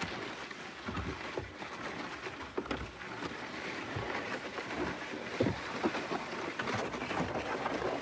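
Wind buffeting the microphone: a steady rushing with irregular low thumps.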